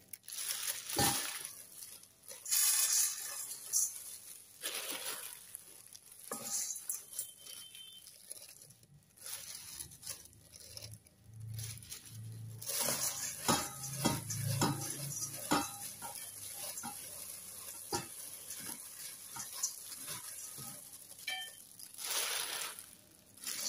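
Dry flattened rice flakes (cốm dẹp) rustling and crackling in a stainless steel bowl as gloved hands scoop and mix them, in intermittent bursts, with a few light clinks against the bowl.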